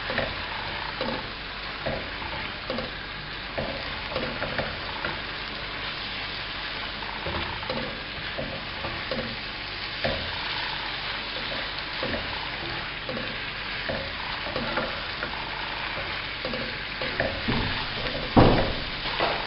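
Minced beef and sliced onions sizzling in oil in a non-stick wok, stirred with a silicone spatula that scrapes and knocks against the pan in irregular strokes, with one louder knock near the end. The onions are being fried until they soften.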